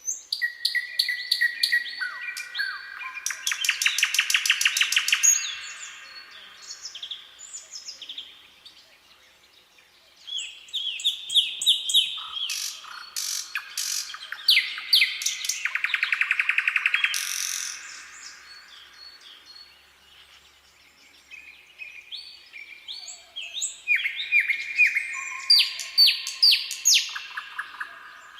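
Common nightingale singing: three long phrases of fast repeated notes, rattling trills and whistles, separated by short pauses.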